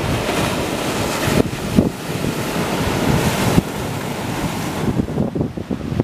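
Ocean waves breaking and washing over a rocky shoreline, with wind buffeting the microphone. The rush of surf falls off abruptly about three and a half seconds in, leaving mostly the wind rumble.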